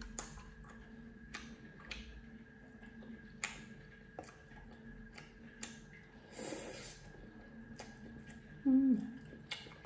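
Close-miked eating of cup noodles: scattered mouth clicks and lip smacks while chewing, a slurp of noodles about six and a half seconds in, and a short hum dropping in pitch near the end.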